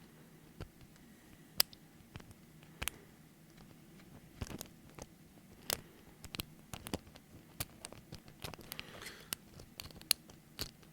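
Small, irregular clicks and light scrapes of a lock pick and tension wrench working the pin tumblers of a door knob lock, coming more often in the second half.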